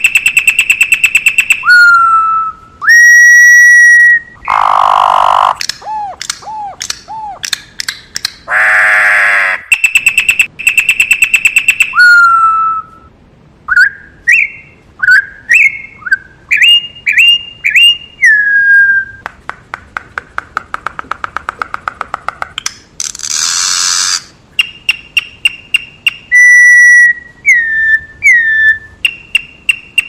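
Campo troupial (corrupião) singing: clear whistled notes, some held steady and some slurring up and down, broken by a few loud harsh rasping notes and fast rattling trains of clicks.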